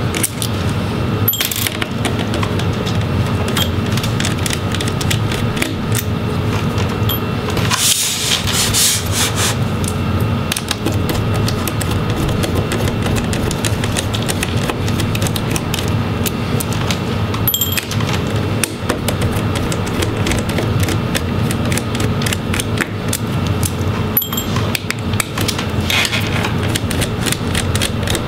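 Background music with sustained tones, over which a screwdriver clicks and scrapes now and then while a laptop's small hinge screws are backed out and the parts are handled.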